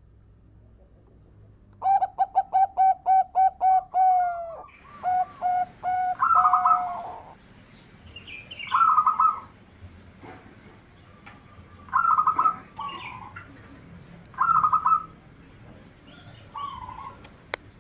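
Zebra dove (perkutut) cooing. About two seconds in comes a rapid run of short, clear, evenly spaced notes lasting a couple of seconds, followed by several shorter coo phrases repeated every two to three seconds.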